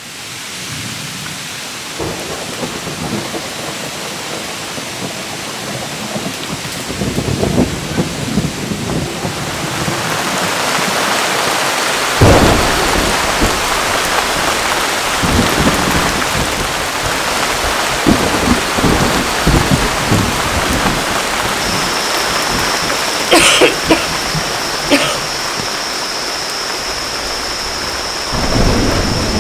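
Thunderstorm: steady heavy rain with thunder rumbling again and again, the loudest clap about a third of the way in. The rain grows heavier and denser from about ten seconds in.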